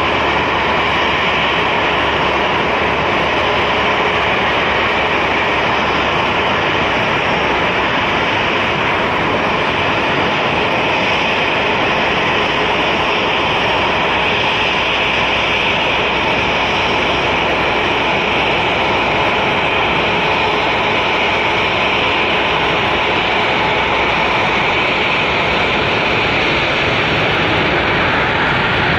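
Steady jet noise of an Antonov An-124 Ruslan's four turbofan engines as the cargo jet comes in to land, touches down and rolls out on the runway.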